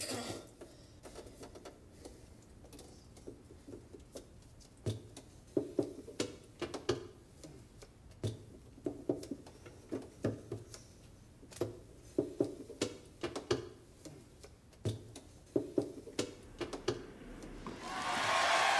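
Playing cards slapped, snapped and flicked against a wooden table as rhythmic percussion: sharp clicks and taps in quick clusters that come in after a few quiet seconds. Near the end an even wash of noise swells in.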